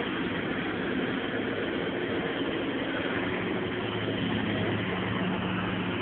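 Caterpillar 315 hydraulic excavator's diesel engine running steadily, with an engine note that grows stronger about four seconds in.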